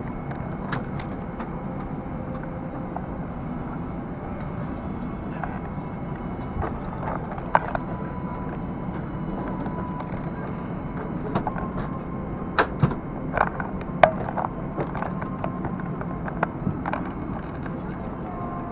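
Steady low cabin hum inside a Boeing 747-400 airliner, with scattered clicks and knocks as passengers move about the aisle and handle seats and overhead bins; the sharpest clicks cluster in the second half.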